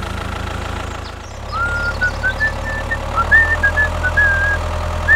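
Low, steady idling of a tractor engine. About a second and a half in, a high whistled tune of short stepped notes comes in over it.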